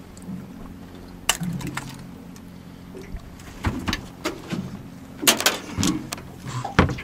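Irregular sharp knocks and clicks, about a dozen, as fish and longline gear are handled in an aluminium boat, with a steady low hum underneath.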